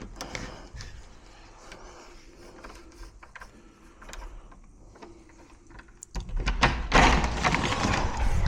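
Faint ticking and clicking of lock-picking tools working inside a Yale Platinum euro cylinder. About six seconds in, a much louder scraping, rattling mechanical sound takes over as the lock is worked.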